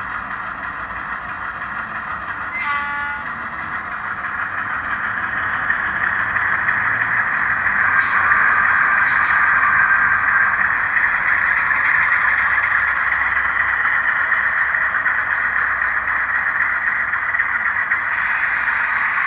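Sound decoder in an Atlas model ALCO diesel locomotive playing recorded Argentine ALCO sounds through its small speaker. A brief horn toot comes about two and a half seconds in. Then the diesel engine sound builds up and runs steadily, with a couple of sharp clicks around eight and nine seconds.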